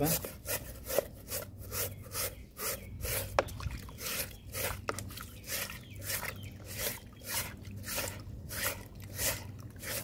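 A coarse stiff-bristled brush scrubbing a wet cloth vacuum-cleaner filter, in repeated scratchy rubbing strokes about two or three a second.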